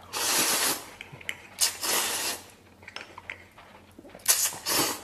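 A man slurping instant noodles: a long slurp at the start, another about a second and a half in, and two short ones near the end, with quieter chewing and small clicks between.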